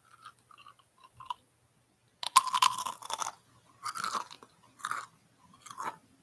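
Veggie chips being chewed with the mouth close to the microphone: a few faint clicks at first, then loud crunching from about two seconds in, coming in bites roughly once a second.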